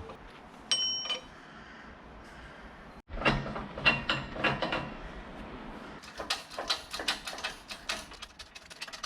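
Metal tools and parts being handled: a single metallic clink with a brief ring about a second in, then clattering knocks, and in the second half a fast, even run of sharp clicks.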